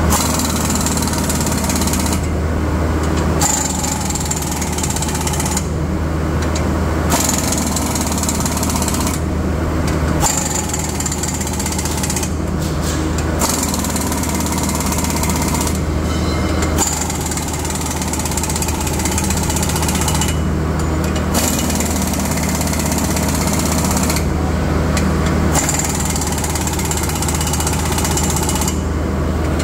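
Loud industrial machinery noise in a pulp mill: a steady low hum under a rattling, hissing din that cuts out for about a second every three to four seconds.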